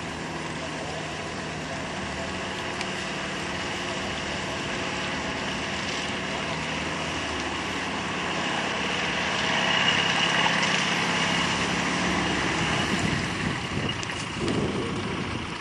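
Off-road 4x4's engine running steadily as it crawls through deep mud ruts, heard from a distance with wind noise on the microphone. It gets louder for a few seconds in the middle.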